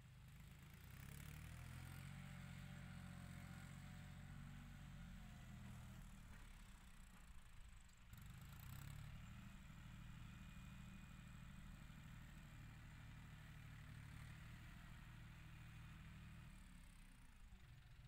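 Faint, distant diesel engine of a John Deere 5045 tractor running steadily under load as it pushes soil into a paddy dike. The engine note dips briefly about eight seconds in, then picks up again.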